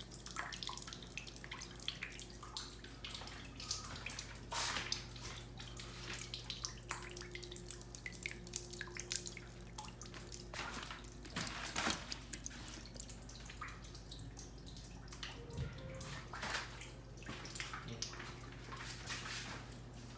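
Water dripping irregularly from a leak, with many scattered drips and splashes over a steady low hum.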